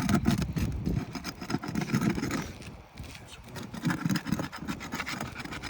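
Brittle asphalt roof shingles being worked loose: irregular scraping and rubbing with small clicks, easing off briefly about three seconds in.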